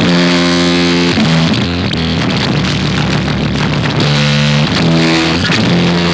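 Loud music with sustained, distorted guitar chords that change every second or so.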